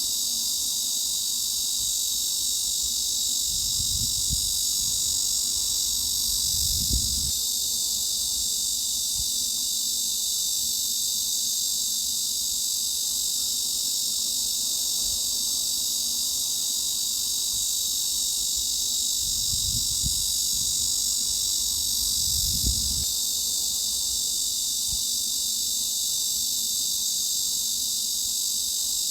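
Cicadas droning in a steady, dense, high-pitched chorus used as a tinnitus masking sound, its energy sitting above about 3.5 kHz. A few faint low thuds sound under it.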